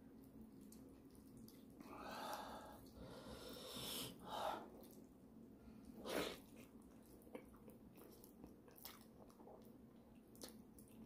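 Close-up eating sounds of a man eating pork leg in gravy by hand: fingers squelching in the sauce and wet chewing, with soft sticky clicks. The loudest is a short burst about six seconds in, as a handful of meat goes into his mouth.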